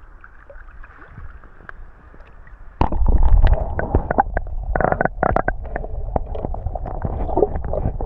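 Water heard through a microphone dunked underwater: about three seconds in, quiet open-air ambience gives way suddenly to a loud muffled rumble with gurgling and many sharp clicks and knocks from the submerged camera being handled.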